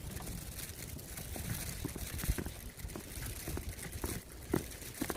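Irregular light ticks and crunches over a steady low rumble, growing a little denser and louder near the end.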